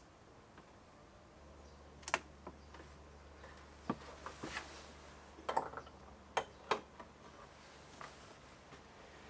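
A scattered series of light clicks and knocks as a homemade wooden table top is swung up on metal flag hinges and fastened in its flipped-up position; the sharpest knock comes about two seconds in.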